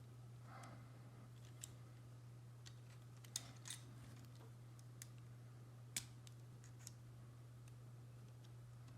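Plastic LEGO Technic pieces being handled and clicked together: a few scattered sharp clicks over a steady low hum.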